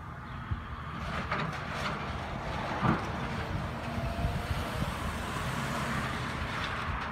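Tracked excavator's diesel engine running steadily as it tears into a house, with cracks and clatter of breaking wood and debris. The loudest of these is a sharp crack about three seconds in.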